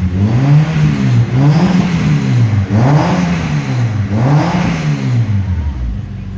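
Acura RSX's four-cylinder engine, fitted with an Injen air intake and DC Sports headers, revved in a series of quick blips about one every second and a half, with intake noise heard along with the exhaust. It drops back to a steady idle near the end.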